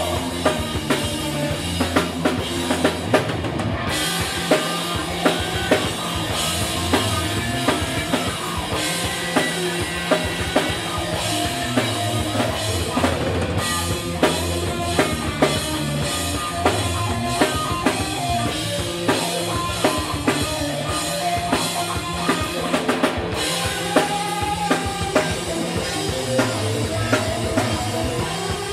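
Live rock band playing: electric guitars over a drum kit pounding out a steady beat of bass drum and snare.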